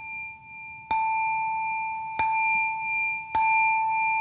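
A small metal singing bowl struck three times with a wooden striker, about once every second and a quarter. Each strike rings a clear, bell-like tone that keeps sounding under the next one.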